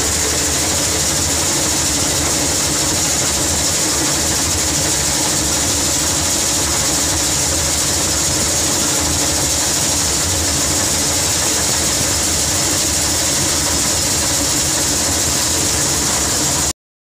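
Kartar combine harvester running steadily at work, a constant engine and machinery drone with a strong hiss, as grain streams from the auger into the grain tank. The sound cuts off abruptly near the end.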